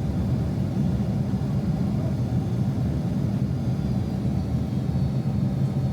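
Steady low rumble of a Boeing 767-300 airliner's cabin as heard from a passenger window seat, the engine and airflow noise holding even with a faint high whine above it.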